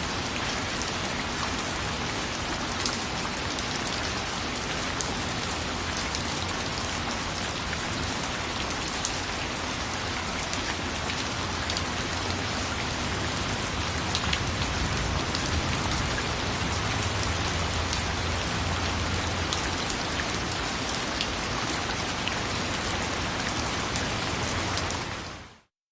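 Steady rain falling, with many separate drops clicking and pattering on a surface. The sound fades out quickly right at the end.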